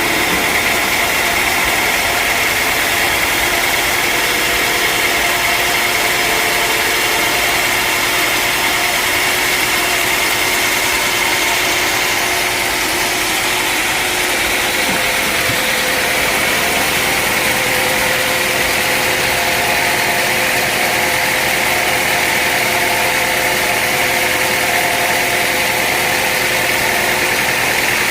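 Sawmill machinery running steadily: an engine-driven saw with a constant high whine and steady engine hum.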